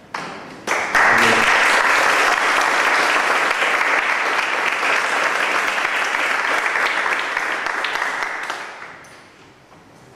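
Audience applauding: a few scattered claps, then full applause from about a second in, dying away near the end.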